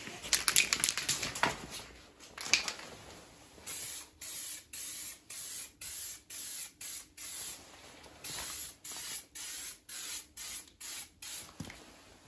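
Aerosol can of grey primer spraying in short hissing bursts through a wide-spray nozzle, about two a second, with a short pause midway. The bursts are preceded by a couple of seconds of rattling clicks.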